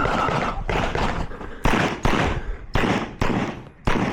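Pistol shots fired in quick succession, mostly in pairs with a short gap inside each pair, each shot ringing off briefly.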